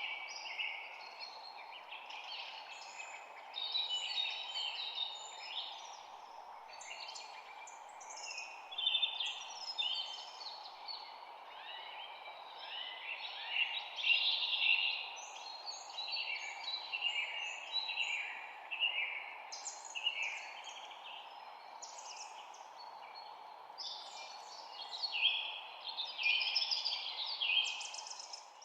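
Several songbirds chirping and singing at once in a dense spring chorus, with many overlapping high calls and short trills. A steady background noise runs beneath the birdsong.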